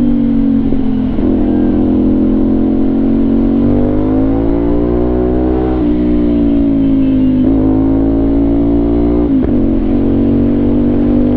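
CFMOTO 450NK parallel-twin engine running through an Orion Ara aftermarket slip-on exhaust under way. The revs climb gently for a couple of seconds around the middle, then drop, with brief throttle changes later on.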